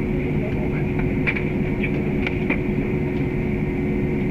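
Airliner cabin noise while taxiing after landing: the jet engines at idle give a steady rumble with a steady hum over it. A few faint brief ticks come through, a couple of them close together between one and three seconds in.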